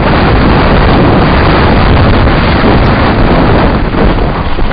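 Wind buffeting the microphone of a camera on a mountain bike speeding down a rough dirt trail: a loud, steady rush of noise.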